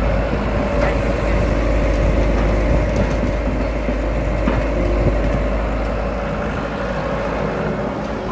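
Diesel engine of a Kato HD450SEV hydraulic excavator running steadily under load as it swings and dumps a bucket of soil, with a few faint knocks.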